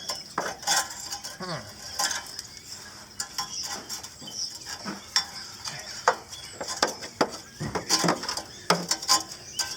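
Metal tools clinking, tapping and scraping against metal in an irregular run of sharp clicks.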